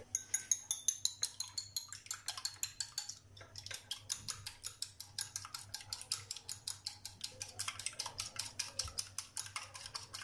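A small wire whisk beating an egg in a ceramic bowl, clicking against the bowl in a fast, even rhythm of about six strokes a second, with a brief pause about three seconds in.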